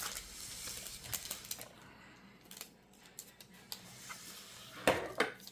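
A Magic: The Gathering booster pack being opened and its cards handled: rustling wrapper and a run of small clicks, with a louder cluster of clicks near the end.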